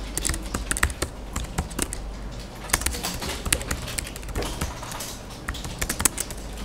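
Typing on a computer keyboard: irregular key clicks with a steady low hum underneath.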